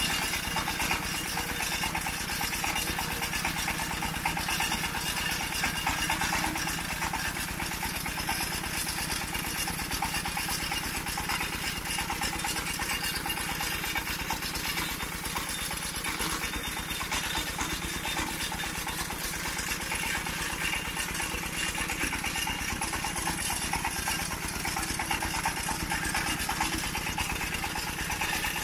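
An engine running steadily at an even pace, with no change in speed.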